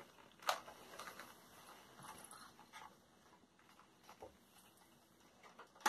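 Clear plastic packaging being handled: a sharp click about half a second in, then a few faint taps and rustles.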